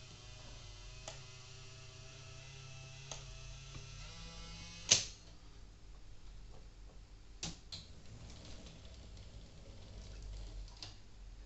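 Model railway turntable humming steadily as its bridge turns, with sharp mechanical clicks; the loudest click comes about five seconds in. In the second half a model steam locomotive runs onto the turntable under the same low hum, with a few more clicks.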